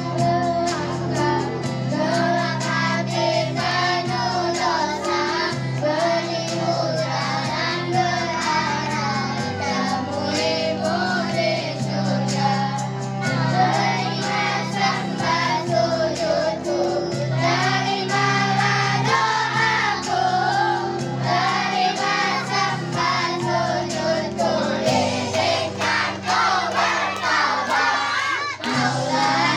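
A small group of girls singing together into microphones, their voices amplified over a steady musical accompaniment with held low notes that change every few seconds.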